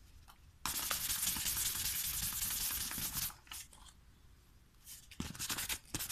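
Fine 1500-grit 3M Wetordry sandpaper rubbed quickly back and forth along the edges of a paperback's newsprint pages, a rapid scratchy rasp that takes off the yellowing. It pauses for about two seconds midway, with a few small handling clicks, then starts again.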